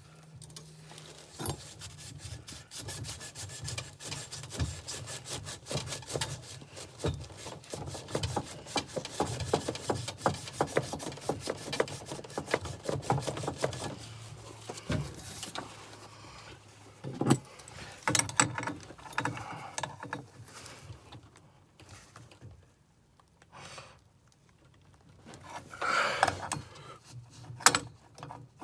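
Rapid rasping, scraping strokes of hand-tool work on the pipework for about the first half, followed by scattered knocks, clicks and handling noises.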